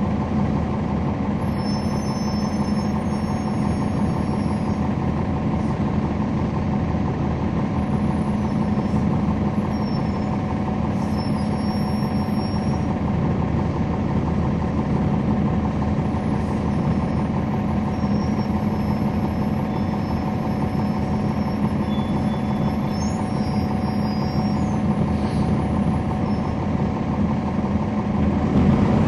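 A 2011 NABI 40-SFW transit bus's Cummins ISL9 diesel engine heard from on board, running at a steady, unchanging speed. Faint high whistling tones come and go over it.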